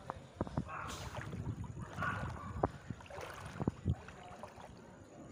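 Someone wading through shallow floodwater: uneven sloshing and splashing steps, each with a low thud.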